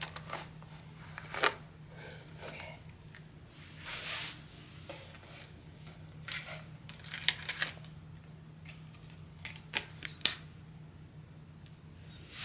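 Hands handling jewelry packaging: scattered light clicks and short rustles of the box and card inserts, over a faint steady low hum.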